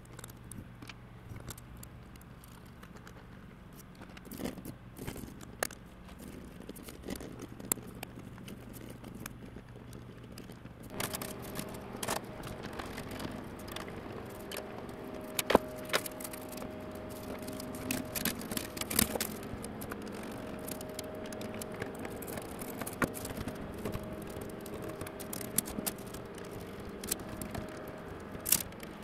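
Handling noise from fitting duct parts together: scattered clicks, knocks and scrapes of plastic fittings and metal hose clamps on flexible ducting. About eleven seconds in, a steady hum with several tones starts and runs on under the handling.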